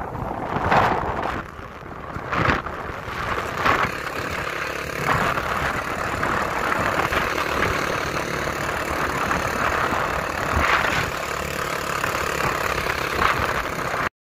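Wind buffeting a phone's microphone: a loud rushing rumble with several brief gusts.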